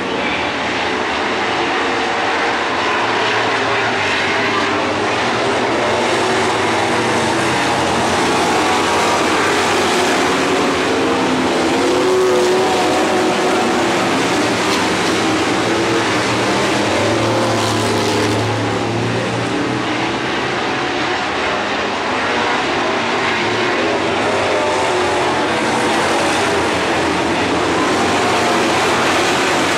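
Dirt-track stock car engines racing around the oval: a loud, continuous engine noise from several cars, swelling and easing as they pass.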